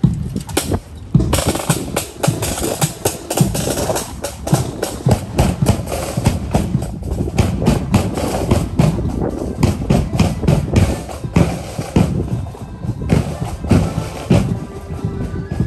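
Marching flute band's snare drums and bass drum beating a steady march rhythm. Near the end, held musical notes begin.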